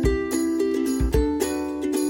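Background music: a bright, plucked-string tune over a regular beat.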